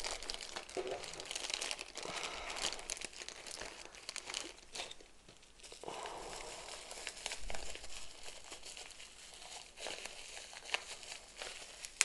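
Plastic packaging crinkling and rustling in the hands as it is opened: a small zip-lock bag, then plastic wrap. The rustles come in irregular faint spells, with a brief lull about five seconds in.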